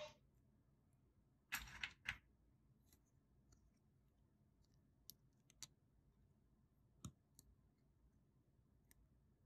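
Plastic Lego pieces clicking as small parts are handled and pressed onto a brick by hand: a quick cluster of clicks about a second and a half in, then a few faint single clicks spread through the rest.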